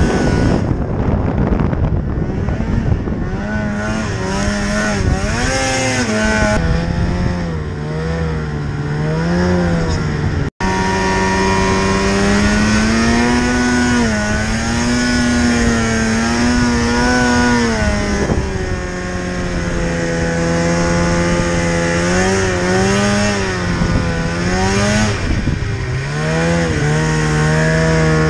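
Polaris snowmobile's two-stroke engine running under way, its pitch rising and falling with the throttle and holding steady between changes. The sound cuts out for an instant about ten seconds in.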